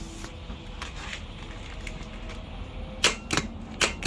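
A few sharp metallic clicks and knocks close together near the end, from the removed starter motor and tools being handled.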